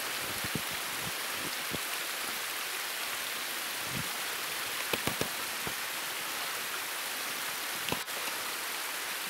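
Footsteps and trekking poles in deep snow: a few soft crunches and thuds at irregular intervals over a steady hiss.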